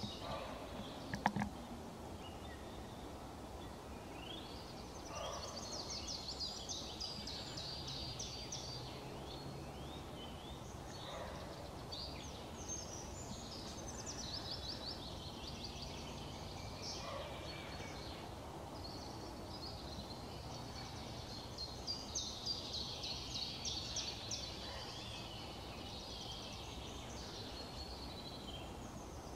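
Roe deer barking faintly in the distance, short hoarse barks about every six seconds, while songbirds sing rapid high trills in phrases of a few seconds. A sharp click about a second in.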